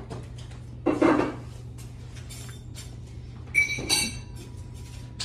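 Tableware clinking: a dull knock about a second in, then a brighter, ringing clink of dishes and utensils near four seconds in.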